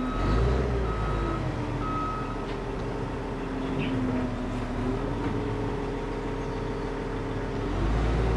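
Large wheel loader's diesel engine running and being throttled, its pitch rising and falling, with a deeper rumble swelling about a second in and again near the end. A backup alarm beeps a few times in the first two seconds.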